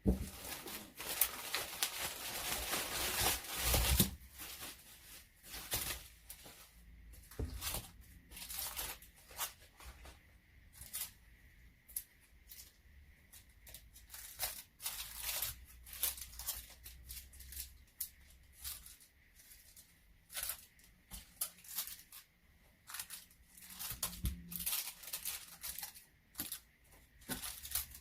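A parcel being opened by hand: a long tearing sound over the first four seconds or so, then irregular rustling, crinkling and light knocks as the packaging is handled.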